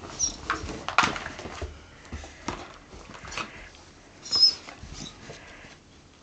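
A dog nosing and pawing a GoGo Hamster toy in its plastic run-around ball: irregular knocks and scuffs, with a few short high squeaks, the loudest about four and a half seconds in.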